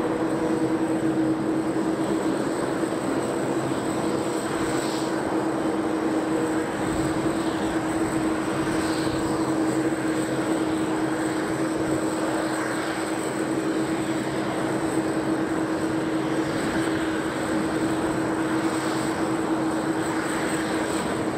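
Steady jet turbine noise from aircraft idling on an airport apron: a constant high whistle over a lower steady hum and rushing noise.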